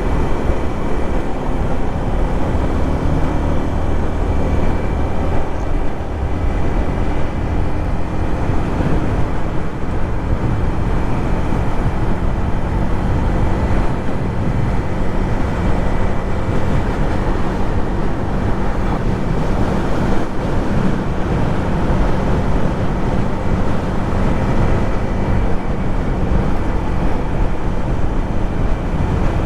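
Yamaha MT-15's single-cylinder four-stroke engine and exhaust running on the move, the engine note holding fairly steady as at a cruise, under heavy wind rush on the microphone.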